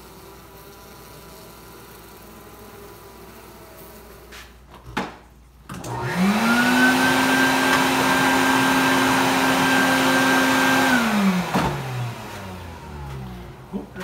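Bee vacuum motor switched on about six seconds in, spinning up to a steady pitch and running for about five seconds before it is switched off and winds down.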